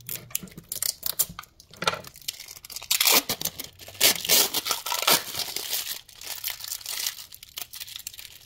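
Wrapping on a block of red cheese wax crinkling and tearing as it is pulled open by hand, in irregular crackles, loudest in the middle.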